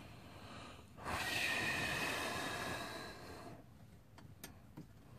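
A long, heavy breathy exhale of about two and a half seconds, starting sharply about a second in and fading out, followed near the end by three light clicks.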